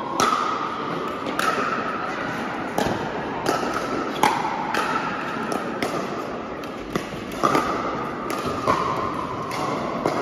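Pickleball rally: paddles striking the hard plastic ball, sharp pops coming irregularly about once a second, each with a ringing echo from the large hall.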